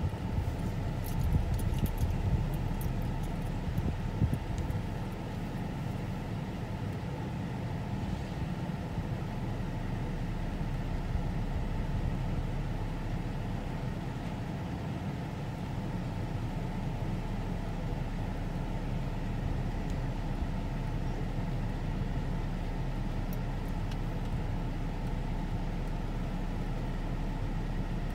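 Steady low engine rumble with a constant hum, unchanging throughout, with a few faint clicks in the first few seconds.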